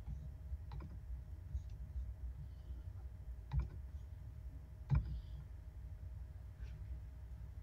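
A few faint sharp clicks, the two loudest about three and a half and five seconds in, over a low steady hum.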